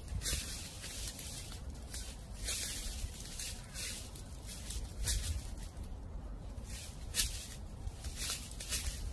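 Dry fallen leaves crunching and rustling in short, irregular bursts, about one a second, over a low wind rumble.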